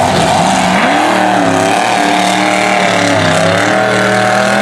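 Monster truck engine running loud, revving up about a second in and then holding high revs with small rises and dips as the truck drives across the dirt.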